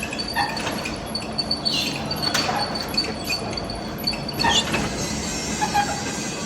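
Heavy metal lathe cutting a steel shaft: a steady high whine from the cut with metallic clinks and short squeals from the tool, over a low machine hum.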